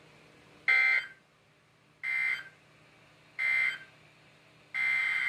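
Emergency Alert System (SAME) data bursts from a NOAA Weather Radio broadcast: three short, loud bursts of warbling two-tone digital data, evenly spaced about 1.3 seconds apart. This is the end-of-message code closing a warning. Near the end, a longer burst of the same data tones begins, the header of the next alert.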